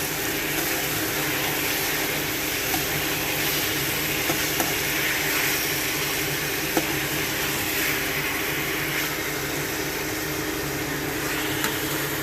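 Marinated chicken pieces sizzling steadily as they fry in a kadhai of hot oil and onion-tomato masala, with a few faint clicks.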